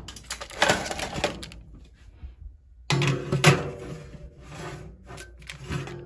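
A baking sheet being slid onto an oven rack, with clatter and knocks from the metal rack and oven.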